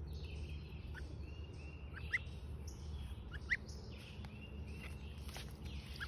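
A gosling about three weeks old peeping: a few short, high, upward-sliding peeps spaced a second or more apart.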